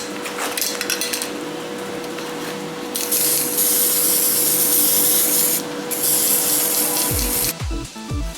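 Rubbing and scraping from hand work on a metal part, then two long bursts of hissing about three and six seconds in. Music with a pulsing beat comes in near the end.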